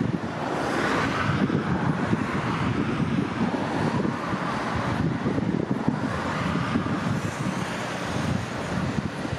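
Strong wind buffeting the microphone, over the tyre and engine noise of cars passing on a highway, which swells twice as cars go by.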